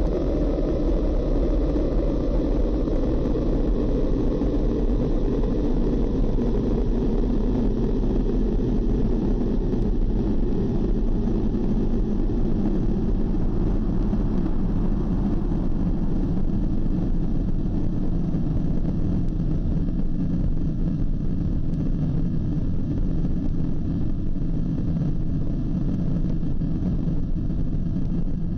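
Loud, dense rumbling noise drone that slowly sinks in pitch, with no break.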